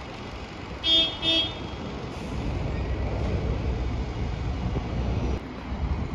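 A vehicle horn gives two short toots about a second in, then a bus engine runs with a low rumble that builds as the bus pulls away.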